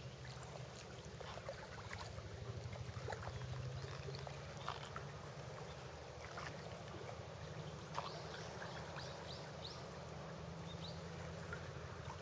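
Low steady drone of a distant motorboat engine across the water, with scattered faint ticks of water lapping close by.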